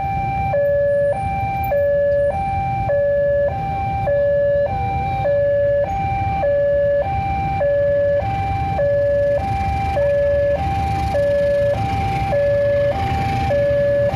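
Railway level-crossing warning bell sounding its two-tone alarm: a higher and a lower tone alternating evenly, each held about half a second. It warns that a train is approaching and the barrier is down.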